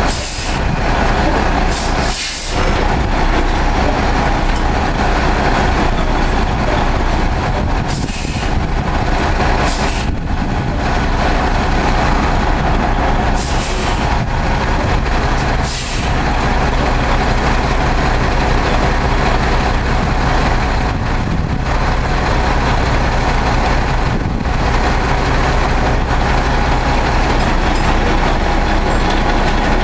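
Heavy trucks' diesel engines running steadily, broken by several short hisses of compressed air from air brakes, most of them in the first half.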